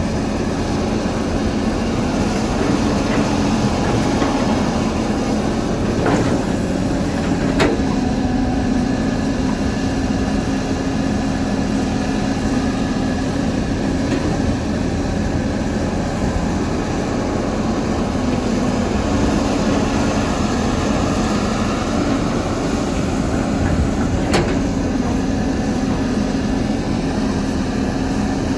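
CAT 320 hydraulic excavator's diesel engine running steadily under working load. A few sharp knocks cut through: two about six to eight seconds in and one near the end.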